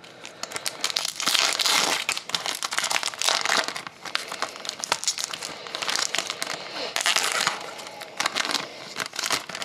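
Silver foil trading-card pack wrapper crinkling and being torn open by hand, a dense, continuous run of crackles.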